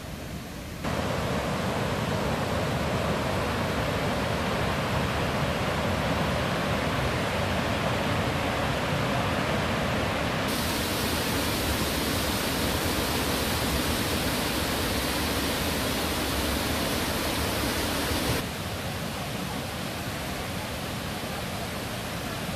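Water rushing steadily over the tiered limestone cascades of Kuang Si Falls. It jumps louder about a second in and drops back somewhat a few seconds before the end.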